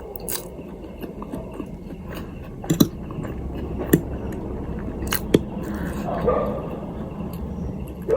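Eating sounds: a handful of sharp crunches or clicks from biting and chewing, a second or so apart, over a low steady hum. A short voice-like sound comes about six seconds in.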